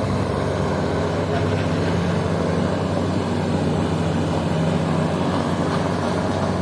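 Logging truck engine running steadily, a low even hum that holds without revving.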